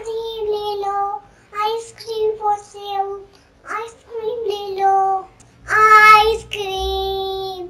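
A young girl singing a short tune in several phrases, ending on one long held note.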